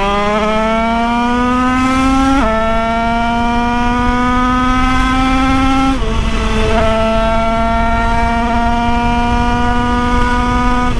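Two-stroke 80cc Italkit Derbi engine on a small motorbike pulling hard at full throttle: the revs climb, drop with an upshift about two and a half seconds in, climb again, drop with another upshift about six seconds in, then rise slowly near top speed, over steady wind rush.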